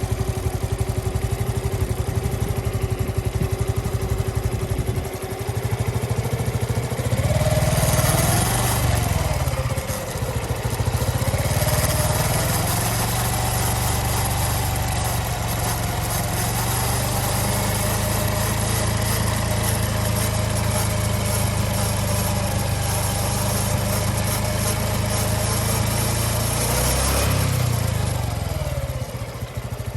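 Honda Cross Cub (JA60) single-cylinder engine idling, then brought up to a higher speed about seven seconds in. It runs there steadily with a whining tone that climbs a little, then drops back to idle near the end. The sound carries an abnormal noise that a drive-chain adjustment did not cure.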